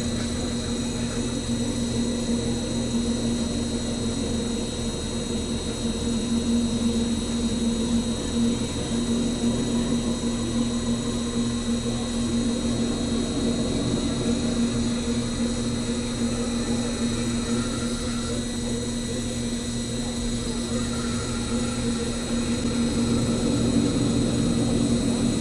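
CNC metal spinning lathe running, its spindle turning a metal disc while a forming roller presses it over the mandrel: a steady mechanical hum with a few held tones, growing slightly louder near the end.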